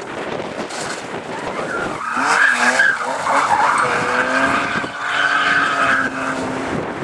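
Rally car sliding through a loose gravel corner. After a couple of seconds of hissing wind and gravel, the engine comes in hard at high revs, its pitch rising and falling, and then holds a steady high note before easing off near the end.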